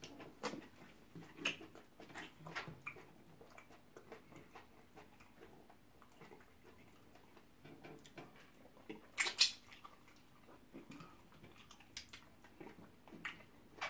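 Mukbang eating sounds: faint chewing and wet lip smacks of pounded yam dipped in stringy ogbono soup, eaten by hand, as scattered soft clicks with one louder, brief noise about nine seconds in.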